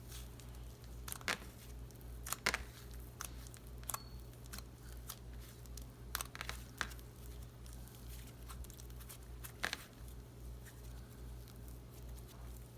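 Hands squishing and pulling a sticky, clumpy tacky-glue slime, giving scattered soft clicks and crackles over a steady low hum.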